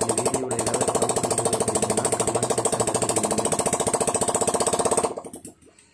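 Bajaj Pulsar 150's single-cylinder four-stroke engine, just rebuilt, running with no silencer fitted: the open exhaust gives a loud, rapid, even popping. About five seconds in the engine stops and the sound dies away.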